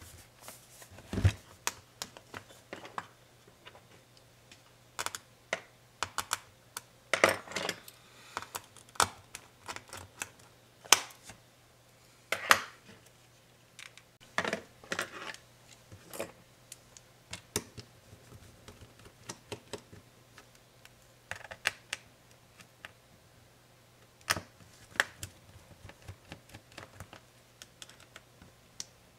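Irregular clicks, taps and a few louder knocks of a Dell XPS 13 9365 laptop and small tools being handled on a workbench: the laptop is turned over and set down on its lid, then worked on bottom-up.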